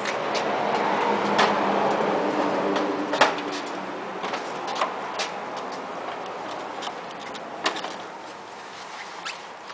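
A tractor's plastic front panel and bonnet being handled and fitted by hand, with scattered sharp clicks and knocks over a rustling hiss. The rustling is louder in the first few seconds.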